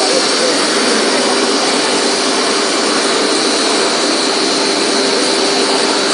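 Double-table CNC drilling machining center running: a loud, steady hiss carrying a high, even whine and a lower steady hum.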